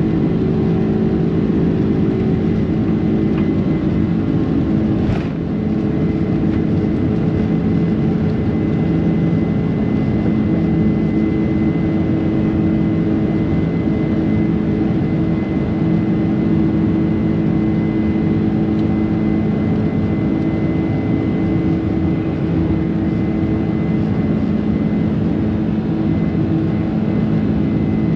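Boeing 767-300ER's twin turbofan engines at takeoff thrust, heard from inside the cabin through the takeoff roll, liftoff and climb-out. A loud steady rumble with low hums and a faint high whine held throughout, briefly dipping with a small knock about five seconds in.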